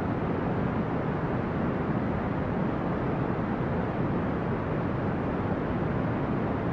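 Steady brown noise: an even, unchanging low rumbling hiss, strongest in the low end and fading out toward the highs.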